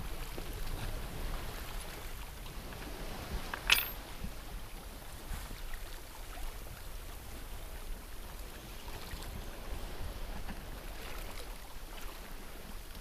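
Steady wash of wind and water around a sailboat at sea, with one sharp click about four seconds in.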